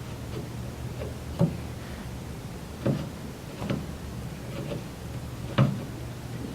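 Four sharp metal clicks and knocks, spread out over several seconds, as a pedal is fitted and threaded onto the exercise bike's crank, over a steady low hum.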